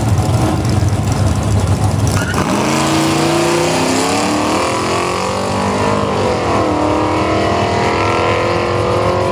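Two drag-racing cars, one of them a Mazda Miata, idling with a low rumble at the starting line, then launching about two seconds in. The engines rev up with a rising pitch, drop in pitch at a gear shift around six seconds in, and climb again as the cars accelerate away down the strip.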